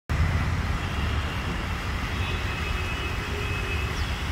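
Steady outdoor background noise: a strong, fluttering low rumble with an even hiss over it.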